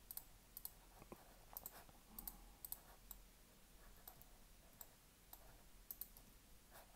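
Faint clicks of a computer mouse and keyboard, many in quick pairs, coming irregularly about once a second, as the 3D cursor is placed and the tool triggered over and over.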